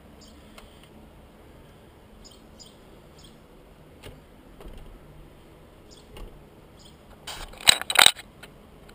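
Faint short chirps over a quiet background, then about seven seconds in a brief burst of loud metallic clattering and knocking as metal objects are handled on a table.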